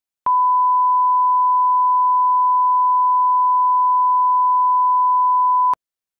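Test tone that goes with colour bars: one steady, high-pitched beep of about five and a half seconds, starting and stopping abruptly with a click at each end.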